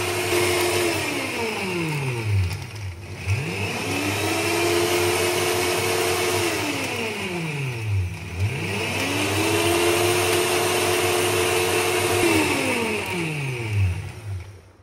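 NutriBullet blender motor blending a berry smoothie in pulses: it runs at full speed, winds down with a falling whine, then spins back up, twice over. About a second before the end it winds down a last time and stops.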